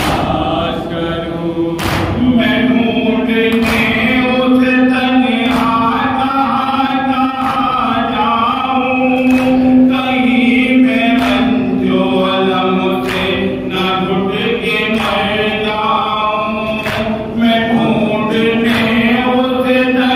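Men chanting an Urdu noha (lament) in unison behind a lead reciter on a microphone, with the sharp slaps of matam, open hands beating on chests, about every one and a half to two seconds.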